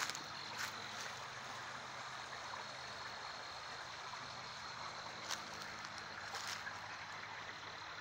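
Outdoor ambience with a steady high-pitched insect drone and a low hum from distant traffic that fades about six seconds in, with a few scuffing footsteps on dirt and leaves.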